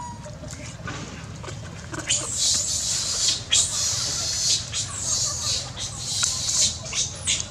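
Long-tailed macaques eating watermelon at close range: wet chewing, slurping and sharp smacking clicks. About two seconds in, a loud steady high hiss joins the chewing.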